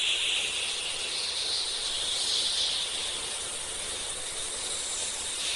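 A steady, high hiss that keeps on without a break.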